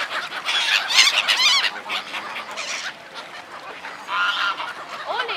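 Black-headed gulls calling in quick, repeated bursts, loudest about a second in, with another burst about four seconds in.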